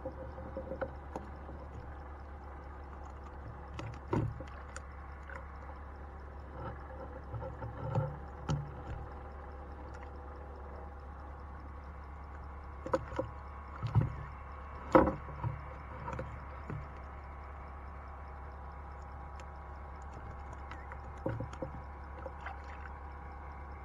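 Fishing net being hauled in by hand over the side of a wooden rowboat: water dripping and splashing from the net, with scattered knocks and thumps against the wooden boat, the loudest a cluster of a few about midway. A steady low hum runs underneath.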